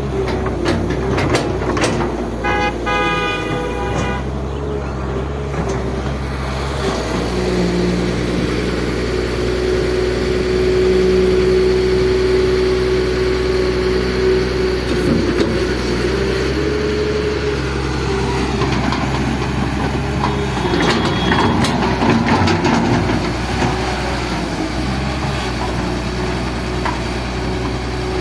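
An excavator's diesel engine running steadily, with a steady hydraulic whine that strengthens for several seconds in the middle as the machine works. A brief horn-like high tone sounds about three seconds in, and scattered knocks and clanks come later on.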